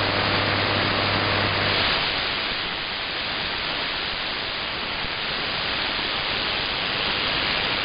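Shortwave static and hiss from an SDR receiver in AM mode tuned to 9,900 kHz, with no programme audio yet, dipping slightly in loudness midway. A low hum sits under the hiss for the first two seconds, then stops.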